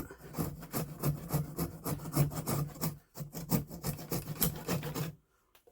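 Hand saw cutting a wooden dowel flush with a wooden surface, the blade held flat, in quick back-and-forth strokes. There is a brief pause about three seconds in, and the sawing stops about five seconds in.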